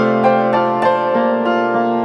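Background piano music: a melody of single notes struck about three times a second over held lower notes.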